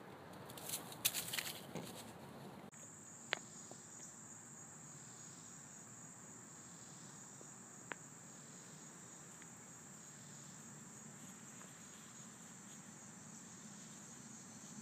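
Brief rustling and crunching in dry grass and leaves about a second in, then a steady high-pitched chorus of insects that carries on to the end, with a couple of faint sharp clicks.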